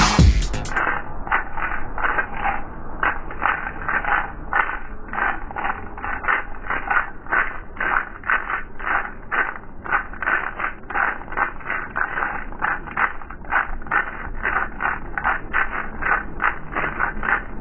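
A pair of maracas shaken in a steady rhythm, slowed down five times, so each stroke is a drawn-out, pitched-down rattle of the seeds, about two to three strokes a second. Electronic music cuts off within the first second.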